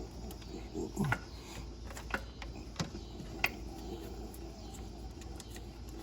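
Scattered light clicks and taps of hand tools and parts being handled during engine work, over a steady low hum.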